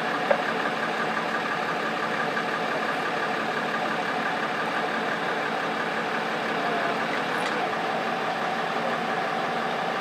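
Fire engine's diesel engine idling steadily, a constant mechanical hum. A single short click about a third of a second in.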